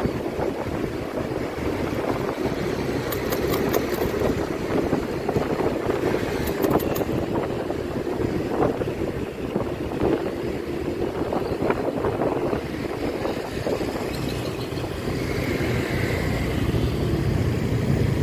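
Motorcycle riding through city traffic, heard from the rider's chest: the engine running steadily under a constant rush of wind and road noise.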